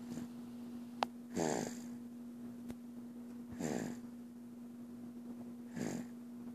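Baby snoring: three snores about two seconds apart, each sliding down in pitch, over a steady low hum. A single sharp click about a second in.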